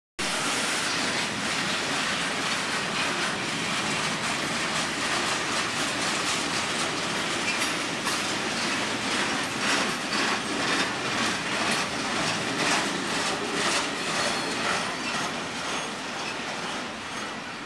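Freight train flatcars rolling past close by: steel wheels rumbling steadily on the rails, with a run of sharp clacks over rail joints in the middle, easing slightly near the end.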